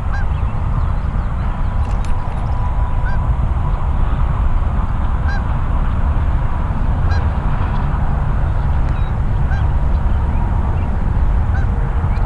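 Wind buffeting the microphone in a steady low rumble, with faint short bird calls every couple of seconds.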